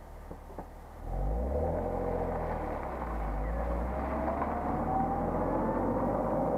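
BMW E46 323Ci's 2.5-litre straight-six through its stock exhaust, heard right at the tailpipes: quiet low idle, then about a second in the car pulls away and the engine note rises, settling into a steadier drone as it drives on.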